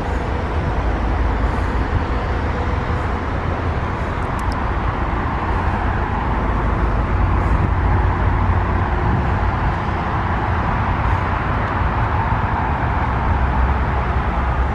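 Steady traffic noise with a heavy low rumble and no distinct events.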